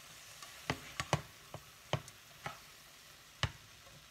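Black plastic slotted spatula stirring chicken, poblano strips and corn kernels in a nonstick saucepan: irregular clicks and scrapes of the spatula against the pan over a low, steady sizzle.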